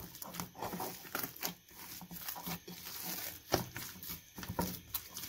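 Risen yeast dough being kneaded by an oiled hand: a quick, irregular series of sticky squelches and soft slaps as the fist presses and folds it.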